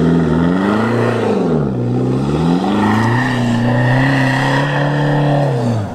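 Isuzu D-Max V-Cross pickup's diesel engine revving under load as it pulls up a steep sandy rut, its note rising and falling several times and dropping away near the end.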